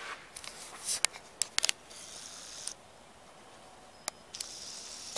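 Handling noise and footsteps as a handheld camera is carried across a hardwood floor: a cluster of sharp clicks about a second in, a short scuffing hiss around two seconds, another click near four seconds, and more scuffing near the end.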